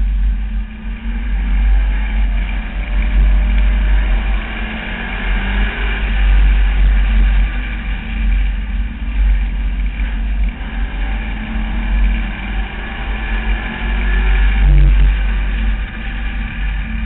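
Street stock race car's engine running hard at racing speed, heard through an in-car camera, its loudness and pitch swelling and dipping as the throttle is worked through the corners.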